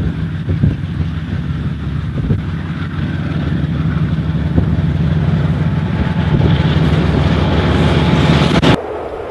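KiwiRail DXC-class diesel-electric locomotive approaching and passing close by. Its engine's low steady drone grows louder along with wheel-on-rail noise, then cuts off suddenly near the end.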